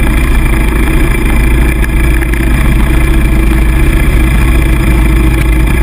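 Off-road engines running steadily close to the microphone, a loud low drone that keeps an even pitch throughout: the camera's own ATV with a dirt bike alongside.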